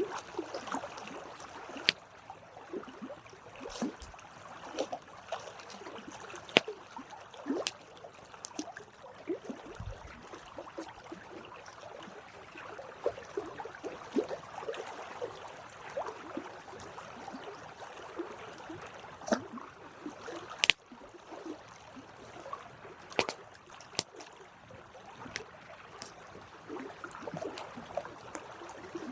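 Campfire burning: wood crackling with irregular sharp pops over a soft steady hiss.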